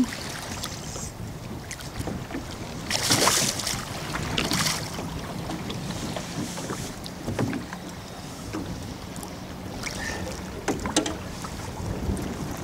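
Hooked walleye splashing at the surface of choppy lake water beside a boat, in a few short splashes with the loudest about three seconds in. Water slaps against the hull, with wind on the microphone.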